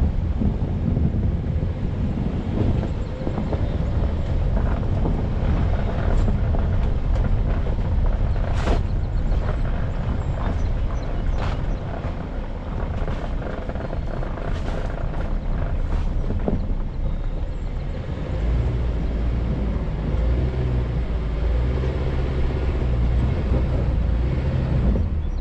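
Off-road vehicle driving through loose sand: a heavy, low engine rumble, with several sharp knocks in the middle stretch. Near the end the engine settles into a steadier drone.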